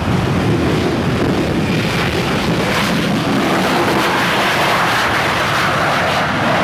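Ilyushin Il-76 heavy cargo jet's four turbofan engines running loud as it rolls out on the ice runway after touchdown. It is a steady jet noise whose higher hiss grows stronger from about two seconds in.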